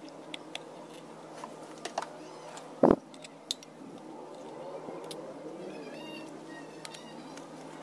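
Small clicks and taps of a transistor and a TV power-supply circuit board being handled as the part is fitted into the board, with one louder knock just under three seconds in.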